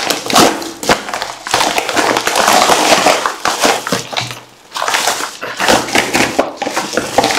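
A plastic mailer bag being torn open and handled, with bubble wrap pulled out: loud, continuous rustling and crinkling of plastic packaging, with a brief lull about halfway through.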